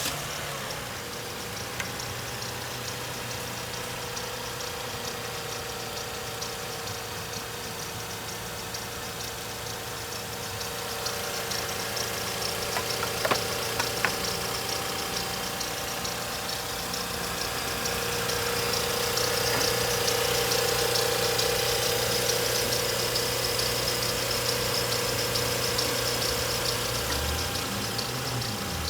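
Toyota 1MZ-FE V6 engine idling steadily, growing somewhat louder about halfway through. There is one brief click near the middle.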